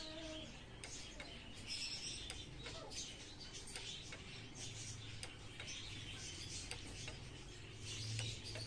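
Small birds chirping in short, scattered calls, over a faint low hum that sets in about halfway through.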